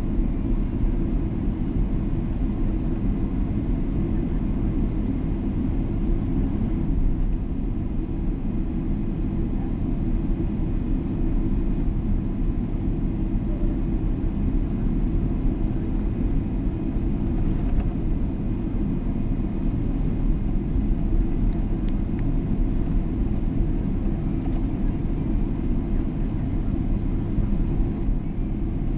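Steady low rumble of a Boeing 777 airliner's engines and airflow heard inside the cabin, with a faint steady whine above it, unchanging throughout.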